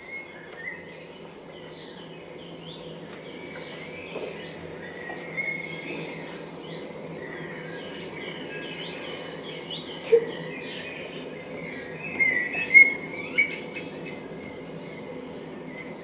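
Recorded birdsong played as a forest sound effect: many small birds chirping and whistling over a steady low hum, with a few louder calls near the end. A short thump about ten seconds in.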